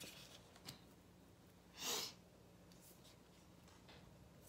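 Near silence: room tone with a faint low hum, and one brief soft hiss about two seconds in.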